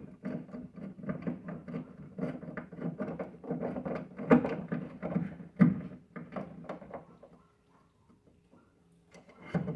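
Rapid, irregular scraping and clicking as a screw is driven by hand to fasten a rod holder to an aluminium boat's gunwale, with two louder knocks about four and a half and five and a half seconds in. It falls quiet about seven seconds in.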